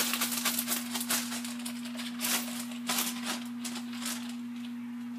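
Plastic bag of seasoned almond flour being shaken and crinkled: a quick, irregular rustling rattle that dies away about four and a half seconds in. A steady low hum runs underneath.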